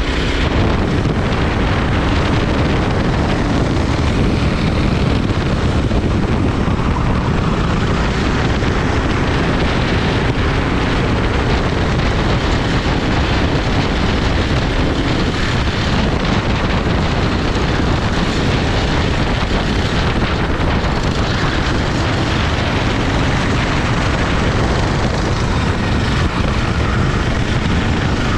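Racing kart engine running at speed, a loud continuous drone that stays even in level throughout.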